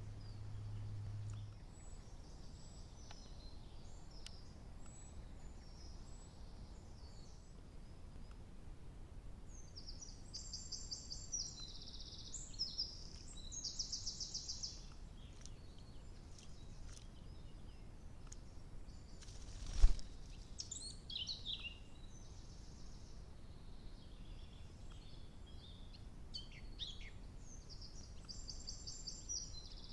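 Songbirds singing in woodland: several phrases of fast, high trilled notes, clustered in the middle and again near the end, over a steady low hiss. A single sharp knock comes about two-thirds of the way through.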